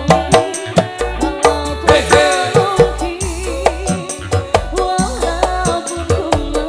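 Live dangdut koplo band music: a steady hand-drum beat with a bending melody line over it.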